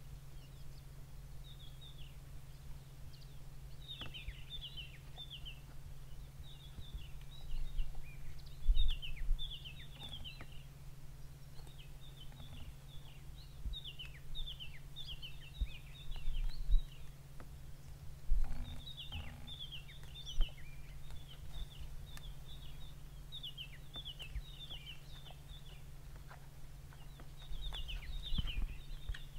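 Birds chirping over and over outdoors, in clusters of short, falling high notes, over a steady low hum. A few dull low thumps come about a third and again about three-fifths of the way in, louder than the birdsong.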